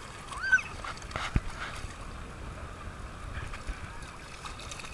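Shallow sea water sloshing and splashing around wading legs, with distant beach voices; a small child gives a brief high squeal about half a second in, and there is a sharp tap a little over a second in.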